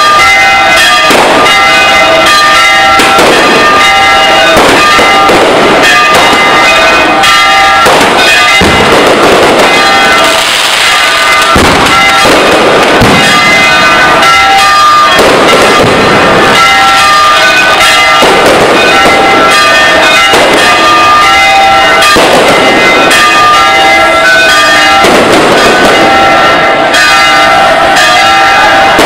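Loud fireworks going off in an irregular string of bangs, over church bells ringing steadily.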